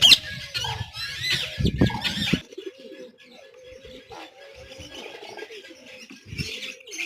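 Birds calling: a loud jumble of chirps and squawks for the first two seconds or so, then a quieter stretch with a low wavering tone, and chirping picking up again near the end.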